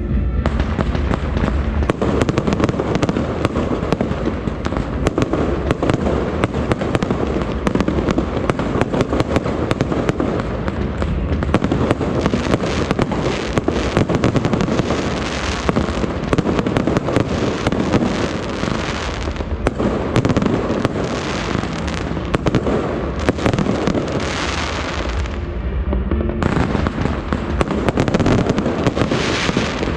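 A dense, continuous barrage of fireworks: rapid crackling and popping bangs with no real gaps. It eases briefly near the end, then picks up again.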